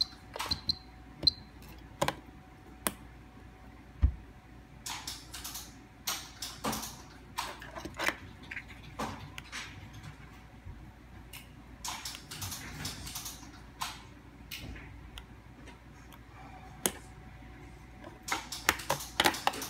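Plastic buttons on handheld garage-door remotes and a duplicator's keypad being pressed and handled: scattered sharp clicks and short rustles, irregularly spaced, with a few short high beeps near the start.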